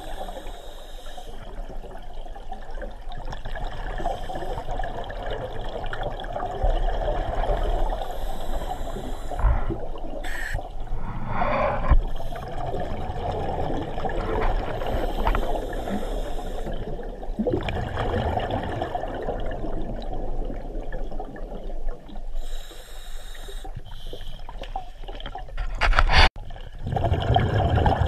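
Muffled underwater water noise picked up by a submerged camera, steady with irregular swells, broken by a sudden brief dropout near the end.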